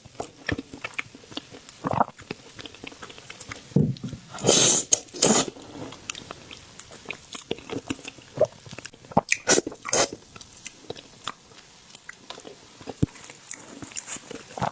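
A person eating close to the microphone: wet chewing and biting with many small crunches and clicks, and a few louder, longer noisy bursts, twice in the first half and once about two-thirds of the way in.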